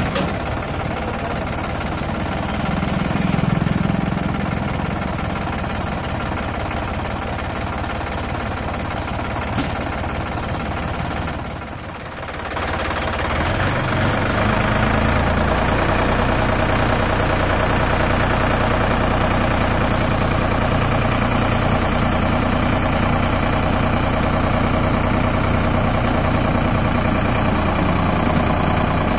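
Sonalika DI-47 RX tractor's diesel engine running at idle; about 12 seconds in it briefly dips, then runs faster and louder, holding steady as it drives the hydraulics that tip the loaded trolley.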